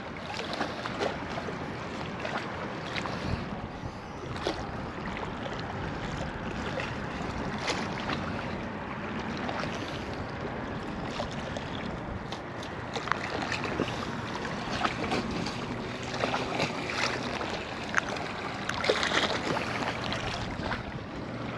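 Steady wind noise on the microphone over water, with scattered faint clicks and taps as a hook is worked out of a small fish's mouth by hand.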